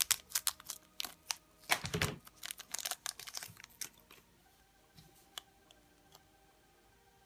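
Thin clear plastic wrapping crinkling and being snipped with scissors off a small plastic toy figure and its base. A dense run of crackles lasts about four seconds, with one louder rustle about two seconds in. Then it goes quiet, with a couple of faint plastic clicks about five seconds in.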